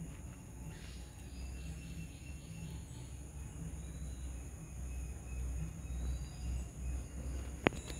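Outdoor ambience: a steady high insect drone with faint bird chirps over a low rumble, and one sharp click near the end.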